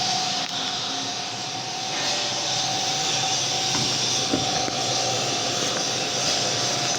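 Metal lathe running steadily, a constant whine over an even hiss, with a faint click about four seconds in.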